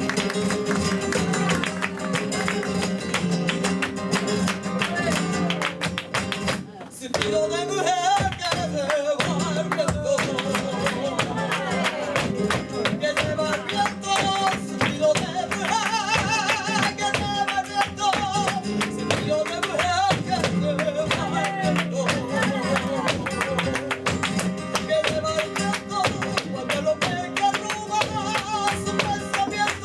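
Live sevillanas: a flamenco guitar strums the accompaniment under a cante singer's voice. The music breaks off briefly about seven seconds in, then the guitar and singing carry on.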